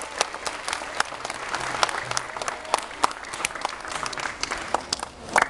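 An audience applauding: many hands clapping together in a dense, steady patter.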